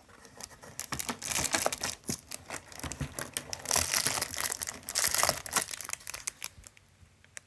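Thin plastic packaging crinkling and rustling as it is handled, mixed with quick small clicks, busiest from about one second in until a little past the five-second mark.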